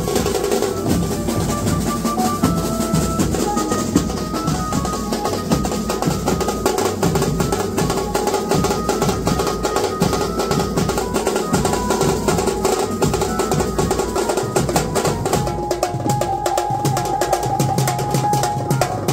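A Maharashtrian banjo band playing live: fast, dense drumming on a set of tom drums and steel-shelled drums with cymbal strikes, over a melody line that steps between held notes.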